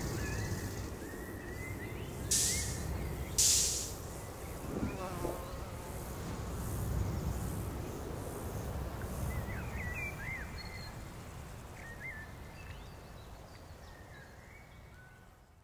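Outdoor meadow ambience: a steady low rumble with insects buzzing and a few short chirps, and two brief hissing swells a few seconds in. It fades out gradually at the end.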